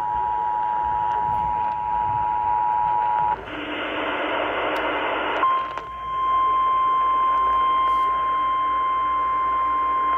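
EAS two-tone attention signal (853 and 960 Hz sounding together) holding steady, then cutting off about three seconds in. About two seconds of radio static follow, then the single 1050 Hz NOAA Weather Radio warning alarm tone starts and holds steady.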